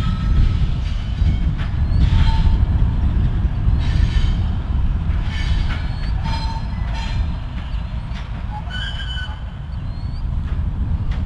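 Diesel locomotives, a GP38-2 among them, rumbling as they creep at low speed. Short high-pitched wheel squeals and several sharp clicks come through as the wheels pass over the curved turnout.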